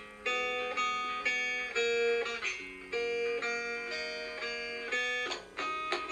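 Background music: a plucked guitar melody of separate, quickly fading notes.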